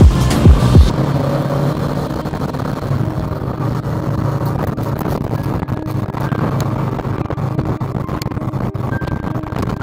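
Motorcycle engine running steadily while riding through town, with road and wind noise. Two loud low thumps come about half a second in.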